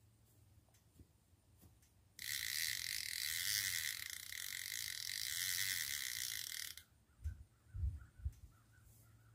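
Bait clicker on a fishing reel buzzing steadily as line is pulled off the spool, starting about two seconds in and cutting off sharply after about four and a half seconds. A few low thumps follow near the end.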